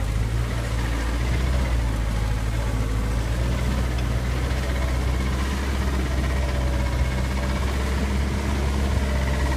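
The four-cylinder flathead (Go-Devil) engine of a 1948 Willys CJ2A/M38 jeep running steadily as the jeep drives slowly off-road over dirt and gravel, its pitch shifting slightly midway.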